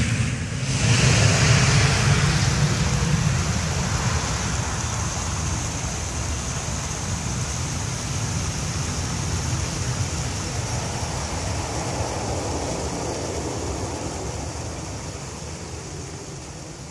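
Embraer ERJ-175's two General Electric CF34-8E5 turbofan engines at takeoff power, a steady jet noise that fades slowly as the airliner climbs away.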